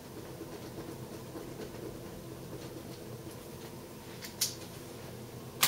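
Faint scratching of a pen scribbling over the address label on a cardboard parcel to make it unreadable, over a low steady room hum, with two short sharp clicks near the end.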